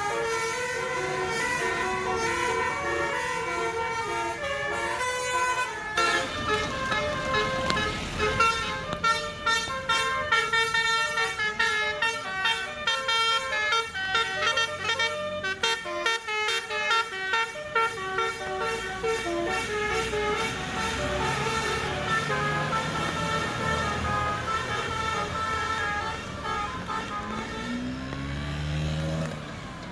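Bus telolet horn, a Basuri multi-tone air horn set, playing a melody of quick stepped notes that jump between pitches, with a fast repeating run of notes through the middle. Near the end the horn gives way to the bus engine's low drone, which rises in pitch as it revs.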